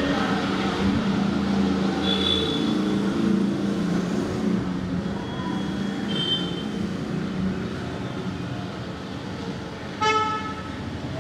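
Busy Indian street traffic: engines running with a steady hum under general road noise, short horn toots now and then, and a louder horn blast near the end.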